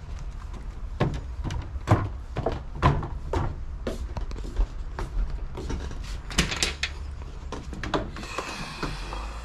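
Footsteps on wooden stairs and a wooden deck, sharp knocks at about two a second, then a door opening near the end.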